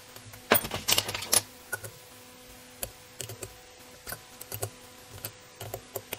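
Light metallic clicks and taps of a small combination wrench on the Nyloc nuts of a Weber carburetor's accelerator pump cover as they are snugged down. A quick run of clicks comes about half a second in, then scattered single ticks.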